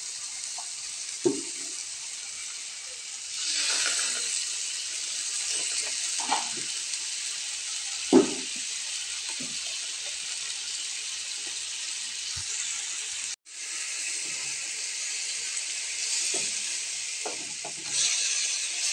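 Tomato and onion sauce sizzling steadily in a nonstick frying pan, thinned with a little water, with a few light knocks of a wooden spatula on the pan and stirring near the end.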